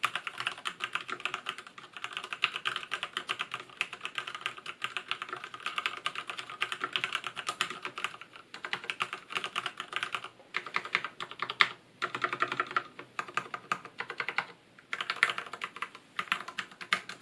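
Typing on a Durgod Taurus K320 tenkeyless mechanical keyboard with Cherry MX Black linear switches: a fast, dense run of keystroke clicks, with a few brief pauses in the second half.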